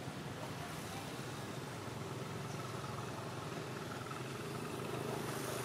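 A motor engine running steadily, a low droning hum that grows a little louder near the end.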